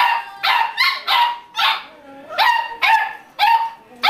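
Beagle puppy barking repeatedly, about eight short, high-pitched barks at roughly two a second.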